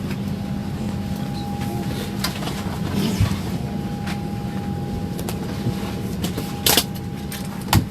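Steady drone of an airliner cabin, engine and ventilation noise with a constant low hum and a thin steady tone, broken by two sharp clicks near the end.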